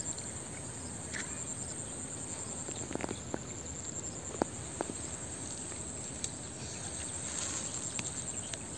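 Steady high-pitched insect chirring, with a few faint clicks between about three and six seconds in.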